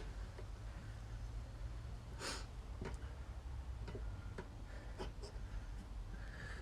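Tyre irons working a motorcycle tyre bead over the rim by hand: scattered light clicks and knocks, with one hard breath about two seconds in, over a steady low hum.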